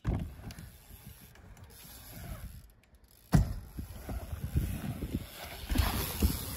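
BMX bike riding over wooden ramps: tyres rumbling on the wood with scattered knocks and clicks. It gets suddenly louder about three seconds in.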